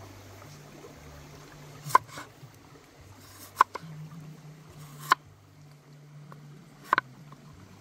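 Large kitchen knife slicing through a peeled raw potato and striking a wooden chopping board, four sharp knocks about a second and a half apart.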